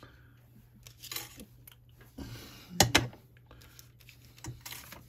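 Craft supplies handled on a desk cutting mat: scattered light clicks, knocks and paper rustles, the loudest a double knock about three seconds in, as a plastic ink pad is set down and a thin die is picked up.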